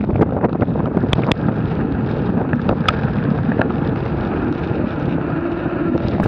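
Wind buffeting the microphone of a mountain bike's rider-mounted camera as it rolls down a gravel track, with tyres crunching on gravel and scattered sharp clicks and rattles from the bike.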